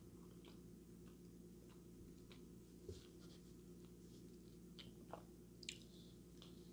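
Faint close-mic chewing of boneless chicken wings: soft wet mouth clicks and smacks scattered irregularly, over a steady low hum.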